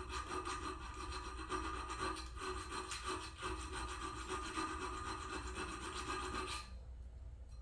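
Hand file scraping along the edge of a scrap-metal blade in repeated strokes, smoothing out a finger hold; the filing stops a little before the end.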